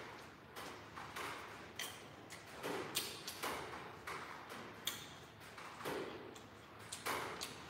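A person chewing a mouthful of noodle soup close to the microphone: irregular wet mouth smacks and clicks, several a second.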